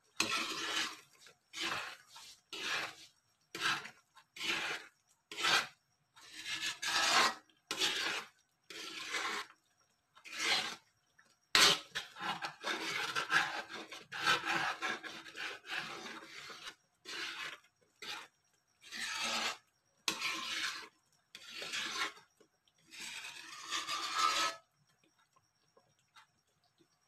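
A metal ladle scraping and rubbing on the bottom of an aluminium pan as thick chocolate rice porridge is stirred. The strokes come about once a second, with a few seconds of continuous stirring midway, and stop near the end.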